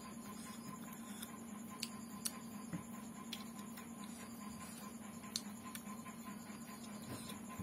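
Eating by hand: fingers mixing rice and curry on a plate, with chewing, making scattered soft clicks and ticks, a few of them sharper, over a steady low hum.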